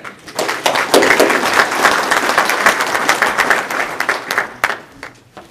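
Audience applauding: a dense patter of many hands clapping that starts just after the introduction and thins out and dies away near the end.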